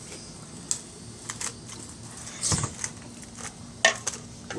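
Scattered clicks and knocks of objects being handled, five or so in all. There is a duller thud about two and a half seconds in, and the sharpest click comes near the end.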